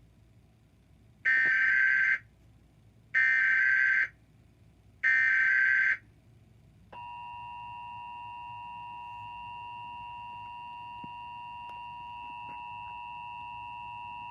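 An Emergency Alert System broadcast played over a TV. Three loud bursts of screeching digital data about a second apart make up the SAME header, and about seven seconds in the steady two-tone EAS attention signal starts, the alarm that comes before the tornado warning message repeats.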